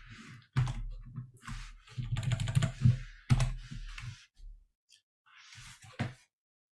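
Several separate keystrokes on a computer keyboard as key combinations are pressed to open and close text folds in an editor, with a gap before a last press near the end.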